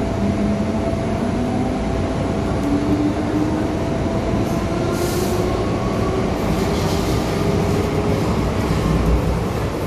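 MTR M-Train metro car heard from inside, pulling away from a platform: running noise with a whine from the traction motors that rises steadily in pitch as it gathers speed. A brief high squeal from the wheels about five seconds in.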